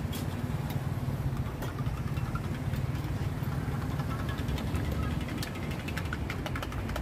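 Steady low rumble of road traffic with an engine idling, and a metal spoon clinking in a stainless steel cup as a drink is stirred, the clinks coming thick and fast in the last couple of seconds.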